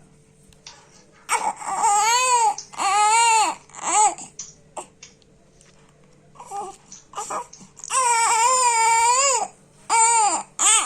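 A one-month-old infant crying: three loud wails in quick succession starting about a second in, a few short whimpers, then a longer wail and a brief last cry near the end.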